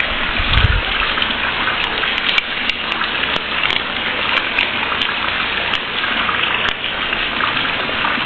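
Steady heavy rain falling, with a brief low thump about half a second in.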